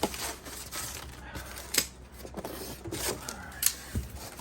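Cardboard and styrofoam packaging being handled and pulled apart: scratchy rustling and scraping, with two sharp snaps, one a little under 2 seconds in and one near the end.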